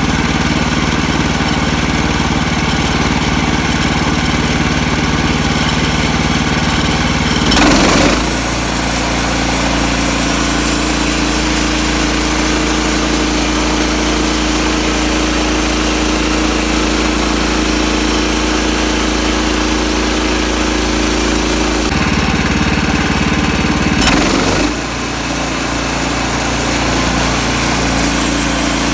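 Sawmill's gasoline engine running steadily, twice breaking into a brief louder surge where its pitch shifts, then settling into a new steady note.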